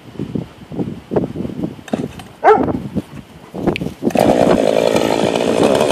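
Ported Husqvarna 262XP two-stroke chainsaw opening up to full throttle about four seconds in and running loud and steady. Before that there are faint gusty noises and one short rising-and-falling tone about halfway through.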